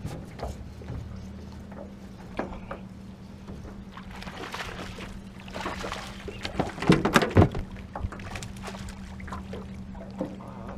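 A hooked smallmouth bass splashing at the water's surface as it is played in on a spinning rod, with the loudest cluster of splashes and sharp knocks about seven seconds in. A steady low hum runs underneath.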